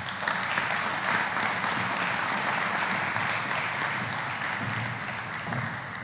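A large audience of delegates applauding steadily, dying away near the end.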